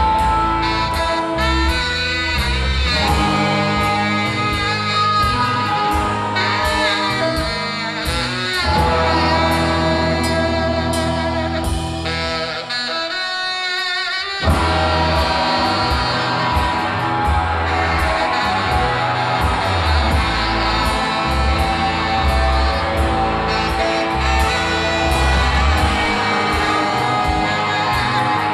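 Live surf-rock band playing loud: electric guitars, drums and saxophone. About halfway through, the low end drops out for about two seconds, leaving only a higher line, and then the full band crashes back in.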